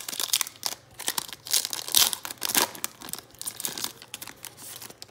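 Foil wrapper of a Donruss Optic basketball trading-card pack crinkling and tearing as it is ripped open by hand, in a dense run of crackles that is loudest about two seconds in.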